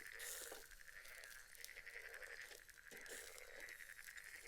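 Faint chorus of frogs croaking, a thin, rapidly pulsing sound that keeps on steadily.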